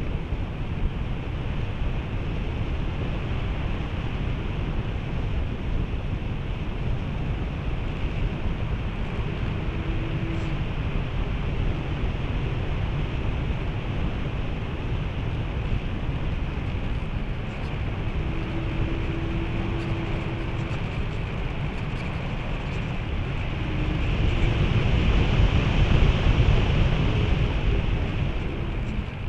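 Airflow rushing over the onboard camera of a radio-controlled glider in flight: steady wind noise on the microphone, swelling louder about five seconds before the end.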